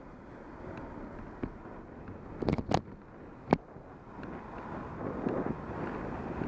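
Steady wind rushing over the microphone, with a quick cluster of sharp clicks about two and a half seconds in and one louder click about a second later.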